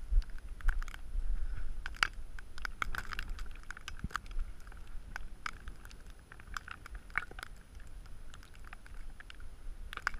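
Wind buffeting the microphone: a gusty low rumble, strongest in the first two seconds, with scattered crackling clicks throughout.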